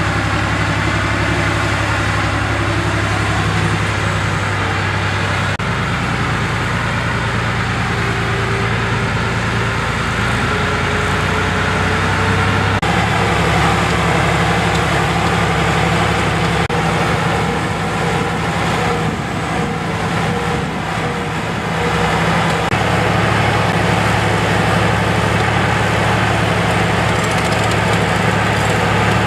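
Heavy tracked dozer vehicle's engine running hard under load, its pitch shifting a few times as the revs change.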